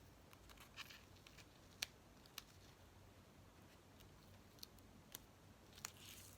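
Near silence, broken by half a dozen faint, sharp clicks and ticks from hands working with craft paper and double-sided tape.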